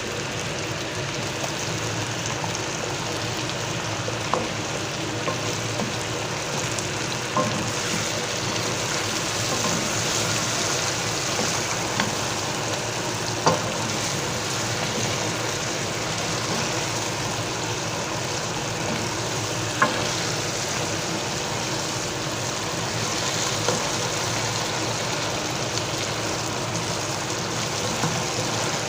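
Chicken, onions and tomato with tomato paste sizzling steadily as they sauté in a pot, with a few sharp clicks scattered through.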